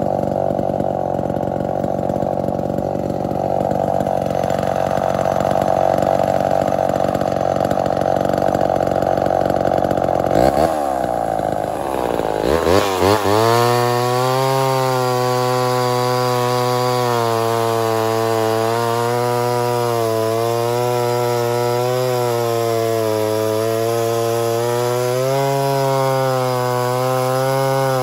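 Homelite XL-12 two-stroke chainsaw cutting through a log at full throttle. About ten seconds in, its pitch swoops and then settles into a steadier, cleaner engine note, wavering slightly as it keeps cutting.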